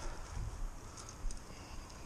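Footsteps and rustling through dry grass and brush, two soft thuds among them, over a low rumble of wind on the microphone, with a few faint light clicks.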